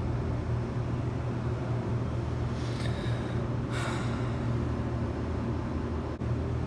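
Steady low rumble in the background, with two short breathy snorts from a sick kitten about a second apart in the middle.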